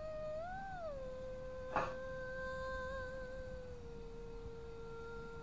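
A long held humming note, steady in pitch except for a brief rise and fall about half a second in and a small drop near four seconds. A sharp click comes a little under two seconds in.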